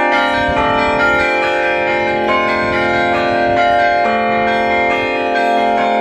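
Several clapper-struck bells of an Orthodox belfry rung together in a continuous peal. The strikes are rapid and overlapping, so the bells keep ringing into one another.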